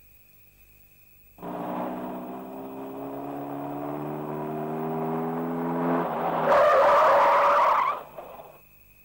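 Car engine running as the car drives up, its note rising slowly, then a loud tyre skid lasting about a second and a half as it brakes to a stop.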